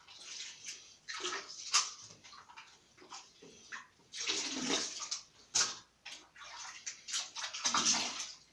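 Water splashing and running in uneven surges over a fan's protective guard as it is rinsed during washing.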